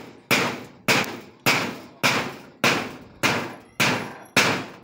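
Hammer blows in a steady, even rhythm, a bit under two a second, each a sharp strike with a short ring, as a crossbeam is nailed to a wooden pole frame.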